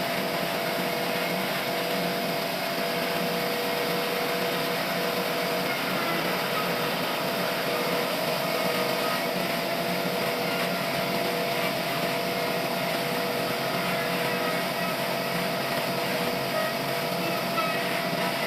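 Sawmill machinery running steadily: an even mechanical drone with a constant hum.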